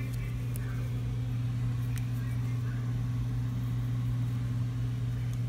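Steady low hum, with a couple of faint clicks.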